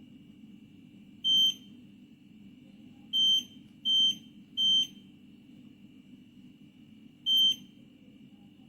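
Electronic control-panel beeps from a Cecotec Bolero DressCode 10800 washing machine: five short, high, single-pitch beeps at uneven intervals, three of them close together in the middle, over a steady low hum.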